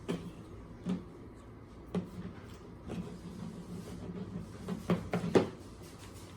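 A few light knocks and clicks of things being handled on a table while making slime, with a louder cluster of knocks about five seconds in, over a low steady hum.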